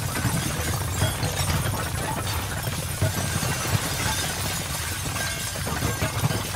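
Wrecking ball demolishing a brick building: masonry and debris crashing and clattering down in several sharp crashes over a steady low rumble.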